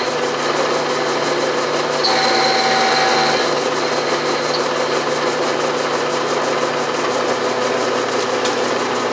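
Vertical milling machine running steadily while a 3/4-inch finishing end mill takes a light finish cut in steel, with a brief added whine about two seconds in.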